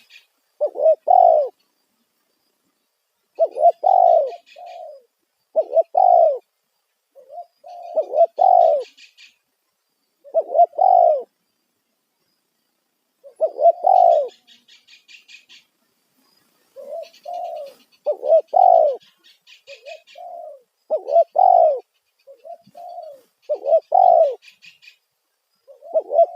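Spotted dove (tekukur) cooing loudly in the 'kuk satu' style, in short repeated phrases every couple of seconds with brief pauses between them. It is a lure call meant to bring wild doves to answer.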